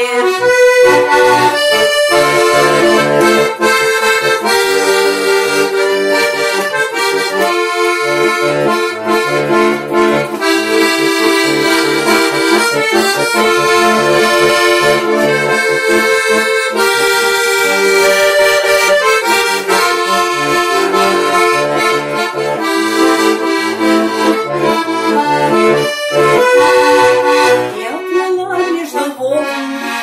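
Button accordion playing an instrumental interlude of a cheerful song: a melody over regular bass-and-chord pulses.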